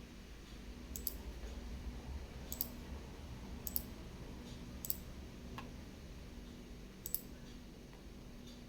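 Five sharp, short clicks at uneven gaps of one to two seconds, several of them doubled, over a faint low hum.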